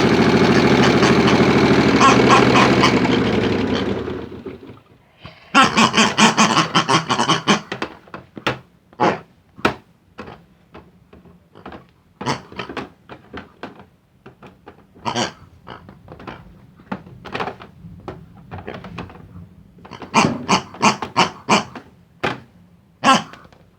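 Small electric motor of a toy washing machine running with a steady hum, then dying away about four seconds in. After it stops, irregular clicks, knocks and short rattles follow, with denser clattering bursts twice.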